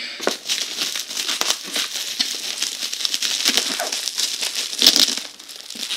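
Bubble wrap and plastic packaging crinkling and crackling as a package is unwrapped by hand, with a louder crackle about five seconds in.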